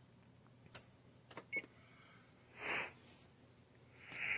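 A few light clicks from the oven's timer buttons being pressed, one with a short high beep, then two short breathy noises.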